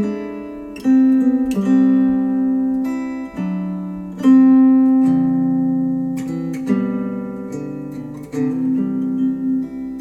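Instrumental music led by a plucked guitar, notes and chords struck every second or so and left to ring, played back through bookshelf speakers.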